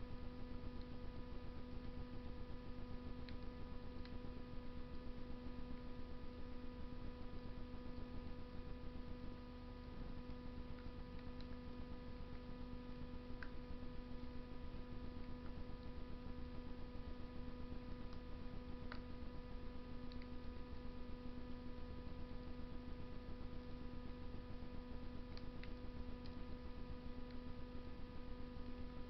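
A steady electrical hum with a few faint, sharp crackles of wood burning in a Russian stove, spaced several seconds apart.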